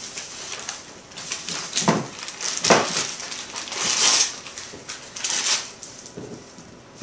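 A dog tearing and rummaging through gift wrapping paper: crinkling and ripping in irregular bursts, the loudest about two to three seconds in and again around four seconds.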